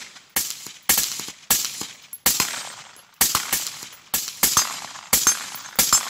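Gunshots fired in a steady string, about ten sharp reports at a bit under one a second, each with a short ringing decay.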